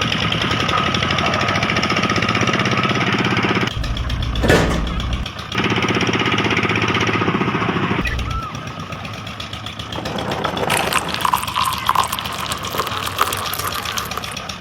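Small DC motor of a DIY model tractor buzzing steadily with gear whine. It cuts off about four seconds in with a knock, runs again, then stops, and a rattling, clicking clatter follows in the last few seconds.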